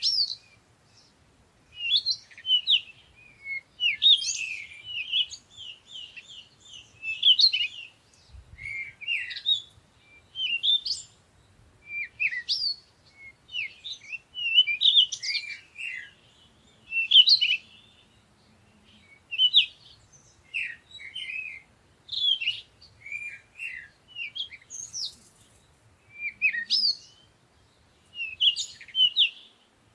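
Songbirds singing, short bursts of quick chirps and trills every second or two.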